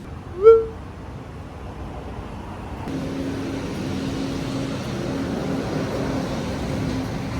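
Road traffic with a vehicle engine running steadily. It starts abruptly about three seconds in and is preceded, about half a second in, by one brief, loud rising whoop.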